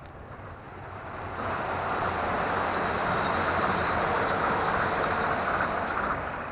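A vehicle passing close by: its noise swells over about two seconds, holds steady, then fades near the end.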